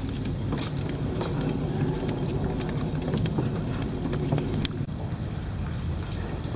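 A motor running steadily, with scattered clicks and knocks over it.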